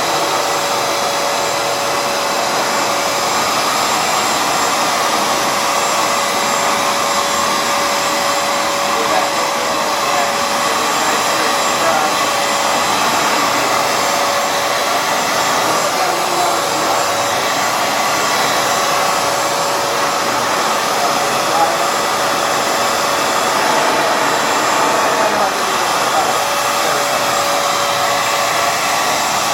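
Hoover FloorMate Edge hard floor cleaner running steadily, its suction motor giving an even loud rush with a thin whining tone.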